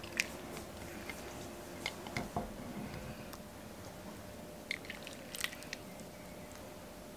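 Soup being ladled from an enamel pot into a porcelain soup plate: faint wet splashing and pouring, with scattered light clinks and taps of the plastic ladle against the pot and plate, a few around two seconds in and a quick cluster near the end.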